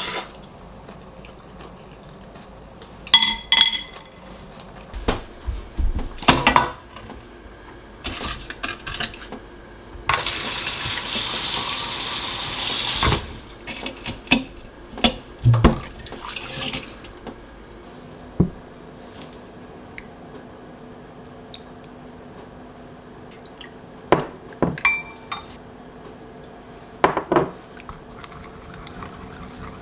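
Kitchen work: dishes, pots and utensils knocking and clinking now and then, with a tap running into the sink for about three seconds near the middle.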